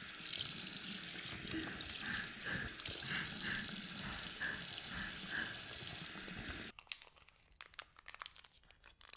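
A steady rushing hiss with a few faint soft chirps in it, cutting off suddenly about seven seconds in; after that only faint scattered crackles.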